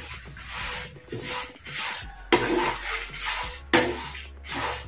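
Flat metal spatula stirring and scraping red chillies, lentils and rice around a frying pan as they roast, in repeated scraping strokes with a few sharp clinks of metal on the pan.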